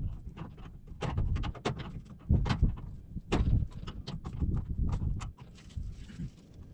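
Farm livestock at close range: irregular knocks and clatter, as of hooves and animals jostling, over a steady low rumble.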